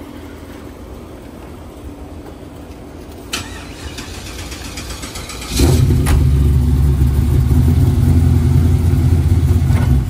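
The 1973 Chevrolet convertible's engine is started. There is a click about three seconds in, and at about five and a half seconds the engine catches and runs loud and deep, holding a steady high idle.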